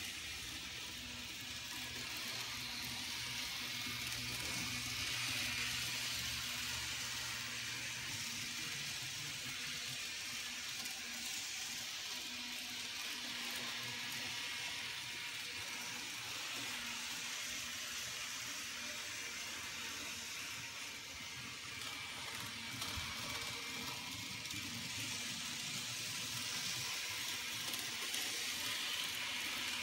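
N scale model trains running on the layout: a steady whir of small locomotive motors with the rolling hiss of wheels on the track.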